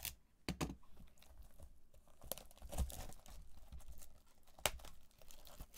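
Packaging crinkling and tearing as a sealed trading card box is opened by hand: scattered sharp crackles and rustles, the sharpest one a little before the end.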